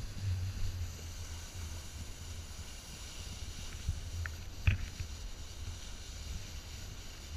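Wind buffeting a pole-mounted action camera's microphone as a snowboard slides over packed snow, a steady low rumble with hiss. A single sharp knock comes about halfway through.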